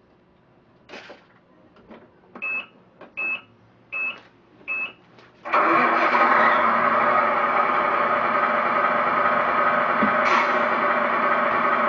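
Four short high beeps about two-thirds of a second apart, then an engine-like sound that starts abruptly about five and a half seconds in and runs on loud and steady.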